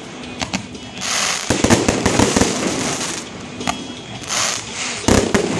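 Aerial fireworks going off: a string of sharp bangs with crackling between them, a dense cluster of reports about a second and a half in and another burst of bangs near the end.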